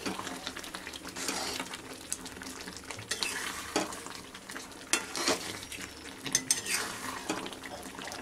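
Metal spatula stirring a thick taro-and-potato curry in a metal kadai, scraping and knocking irregularly against the pan.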